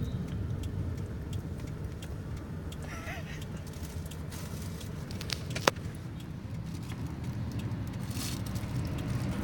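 Steady low rumble of a road vehicle in motion, with one sharp click a little over halfway through.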